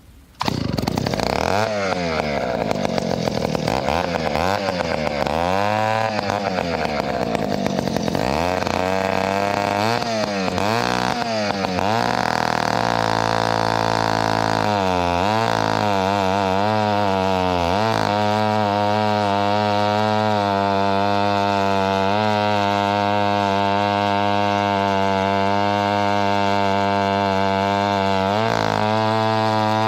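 Vintage Mono 665 planetary gear-reduction chainsaw, a two-stroke, starting up about half a second in. It is revved up and down repeatedly, then settles to a steady speed for the last ten seconds or so. The saw is freshly rebuilt, with cleaned and gapped points and new carburettor diaphragms.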